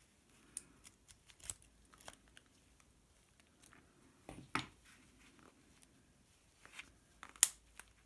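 Light clicks and rattles of circlip pliers and small metal motor parts being handled, with one sharp snap near the end as a part snaps into place.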